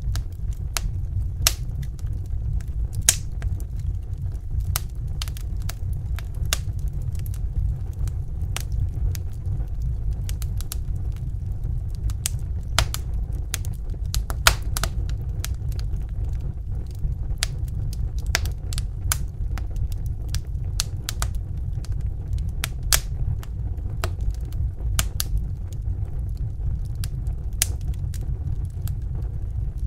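Fireplace fire crackling, with sharp irregular pops and snaps over a steady low rumble.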